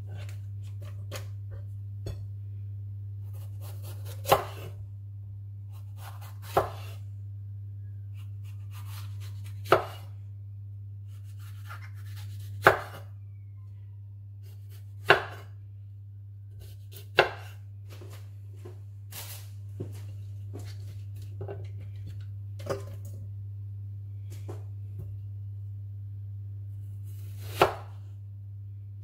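Kitchen knife slicing courgette, yellow pepper and red onion on a wooden chopping board: sharp knocks of the blade on the board every two or three seconds, with softer cuts between, over a steady low hum.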